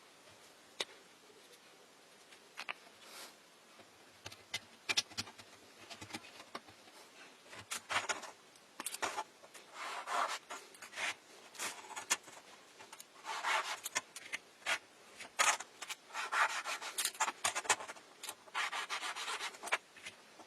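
Hand-work noise on a workpiece: irregular short strokes of rubbing and scraping, with scattered sharp clicks. It is sparse at first and becomes busier about halfway through.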